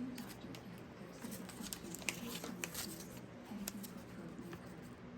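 Faint rustling and small clicks of paper and packaging being handled.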